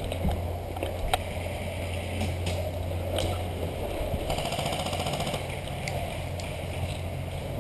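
Airsoft gunfire: scattered sharp single clicks, and about halfway through a rapid rattle of automatic fire lasting about a second, over a steady low hum.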